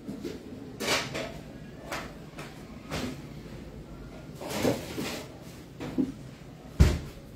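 A series of separate household knocks and clunks, about one a second, as things are moved and set down; the loudest is a sharp, deep thump near the end.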